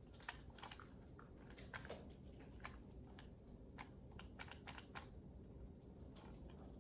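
Faint, irregularly spaced light clicks and taps of a plastic airsoft pistol and its magazine being handled.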